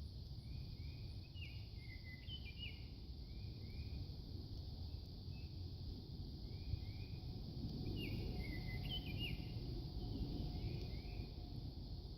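Spring birdsong: short rising chirps repeated in little runs, with a brighter phrase of quick up-and-down notes about two seconds in and again about eight seconds in. Under it runs a steady low rumble and an even high hiss.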